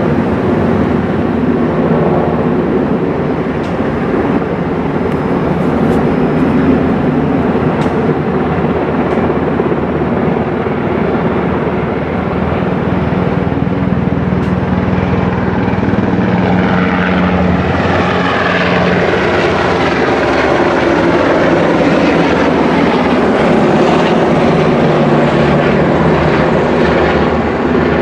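Low-flying military helicopter passing over: steady rotor and turbine noise that grows sharper a little past halfway through.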